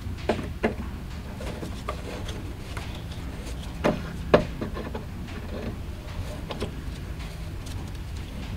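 Needle-nose pliers clicking and scraping against a metal dashboard light-switch bezel as it is turned counterclockwise to unscrew it. A few light clicks, with two sharper ones about four seconds in, over a steady low hum.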